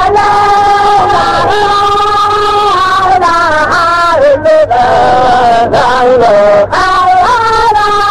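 Voices chanting in unison in long held notes that slide up and down between phrases, with a few short breaks about four and a half and just under seven seconds in.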